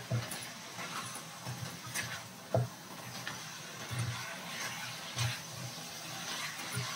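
Spatula stirring chicken feet in a frying pan: irregular scrapes and knocks against the pan, about one a second, over a steady sizzle of the frying sauce.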